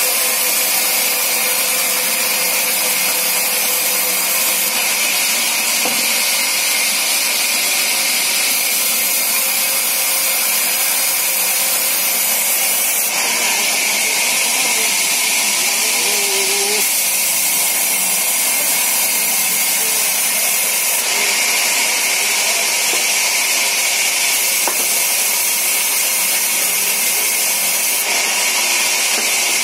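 Sawmill band saw running and cutting through timber: a steady, loud noise that holds without a break.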